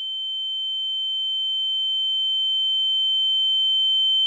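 A steady, high-pitched pure tone held without a break and slowly getting louder, with a fainter lower tone beneath it.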